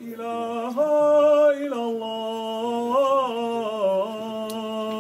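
A man's voice chanting one long unaccompanied phrase of held notes that step up and down in pitch, with small wavering ornaments.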